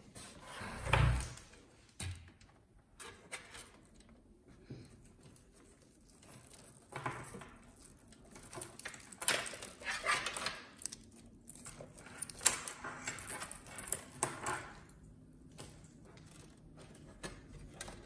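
Power-supply cables being handled and pushed through the back of a computer case: rustling and rubbing against the metal panel with scattered clicks and knocks, and a dull thump about a second in.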